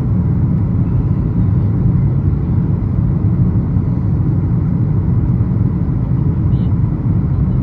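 Steady low rumble of cabin noise inside a Boeing 737 MAX 8 in flight: airflow over the fuselage and its CFM LEAP-1B engines, heard through the cabin while the jet descends towards landing.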